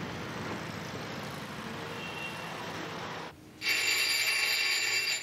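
Steady noise of a car engine running at the kerb with street sound, then about three and a half seconds in an electric doorbell rings for about a second and a half and cuts off.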